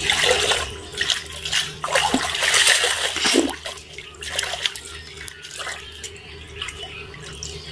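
Pond water sloshing and splashing as cut pieces of pomfret are swished around in a wicker basket to wash them. The splashing is busiest in the first three seconds or so, then thins to lighter swirls.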